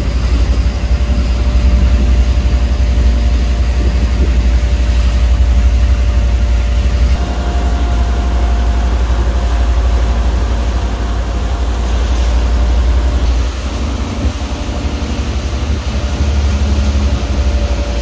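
Motorboat engine running under way: a steady hum over a heavy low rumble and the rush of water from the wake.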